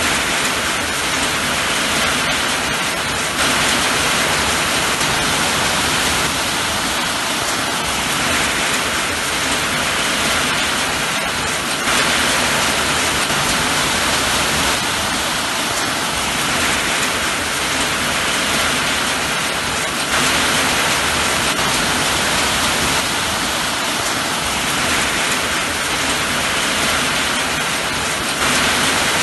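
Steady heavy rain falling, a dense, even hiss with a few slight shifts in loudness.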